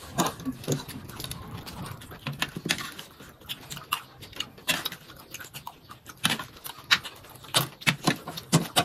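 Metal forks and spoons clinking and scraping against plates in irregular, sharp clicks, with chewing sounds from eating.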